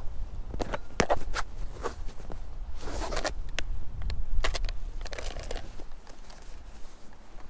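Footsteps crunching through deep snow, an uneven series of short crunches with a few sharp clicks among them, over a low steady rumble.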